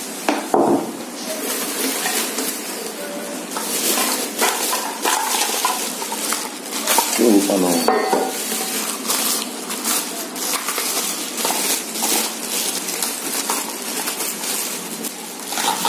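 Plastic wrapping and a plastic bag crinkling and rustling as they are handled and pulled out of an electric pressure cooker's inner pot, with light clatter of things knocking against the pot.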